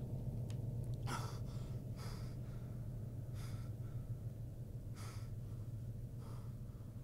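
A man breathing hard in short gasps, five breaths spaced about a second apart, over a steady low hum.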